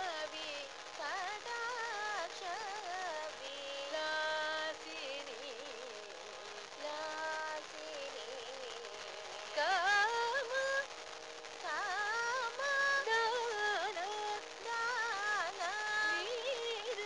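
Carnatic music: an ornamented melodic line that slides and shakes in pitch, in short phrases over a steady drone.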